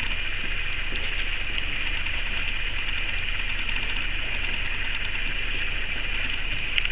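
Steady background hiss with a low hum underneath, with no distinct events.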